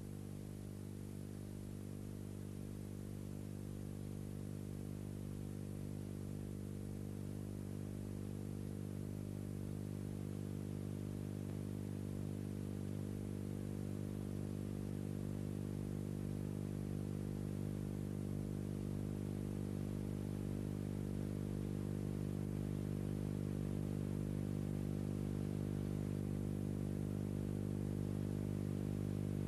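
Steady electrical mains hum on an old film soundtrack: one unchanging low drone with a stack of evenly spaced overtones, slowly getting louder.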